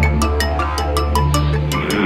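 Cartoon background music: a quick steady beat of short ticks over a simple melody and a held bass note.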